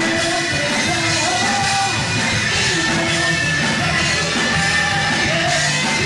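Live rock band playing at full volume: a male singer singing into the microphone over electric guitars, bass and drums.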